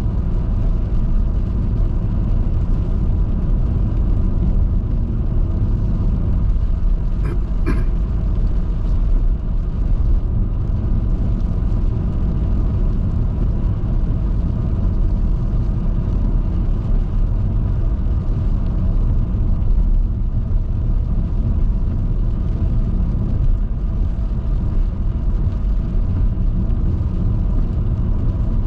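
Steady low rumble of a vehicle driving along a rain-wet highway: road and engine noise. Two brief clicks come about seven seconds in.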